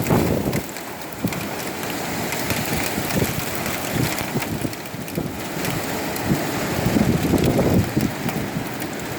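Strong wind gusts of about 65 mph blowing and buffeting the microphone, rising and falling in surges, loudest at the start and again about seven seconds in.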